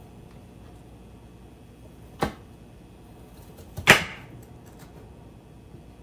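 Two chef's knife strikes on a wooden cutting board while cutting ginger and garlic, about a second and a half apart, the second louder.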